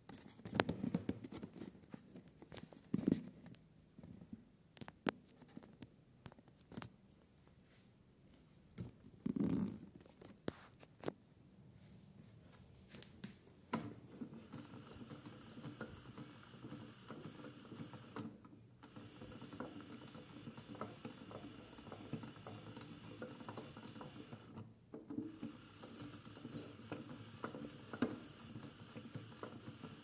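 Toy AEG Lavamat washing machine: water sloshing and small knocks as the wet load shifts in the drum, then, about halfway in, its small motor spins the drum with a steady hum and a thin high whine, cutting out briefly twice.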